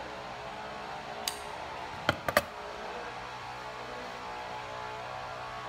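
Scissors snipping the copper conductors of a LAN cable: one sharp click about a second in, then three quick snips a little after two seconds, over a steady low background hum.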